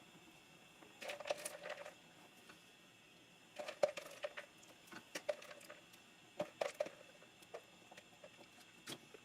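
Kitchen utensils clinking and scraping against dishes in four short bursts with a few single ticks between, the dishes ringing faintly.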